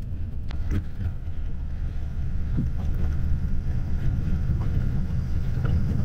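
Road noise inside a moving coach bus: a steady low rumble from the tyres and engine, with a few faint clicks and rattles.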